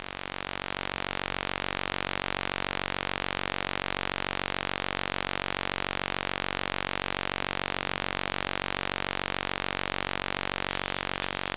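Steady flight-deck noise of a Boeing 737 in flight on approach: rushing airflow with a constant drone of many even tones beneath it.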